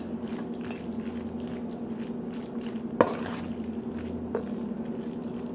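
Light kitchen clatter of dishes and utensils as grated carrot is sprinkled over boiled macaroni: scattered soft taps, one sharper clink about three seconds in and a smaller one after four seconds, over a steady low hum.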